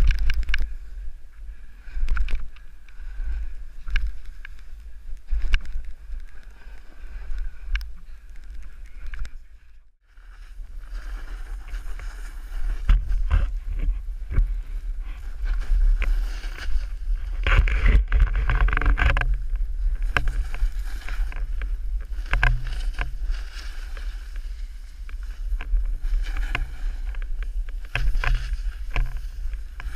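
Wind buffeting a helmet camera's microphone during a snowboard run, with the board scraping and chattering over the snow. The sound drops out briefly about a third of the way through.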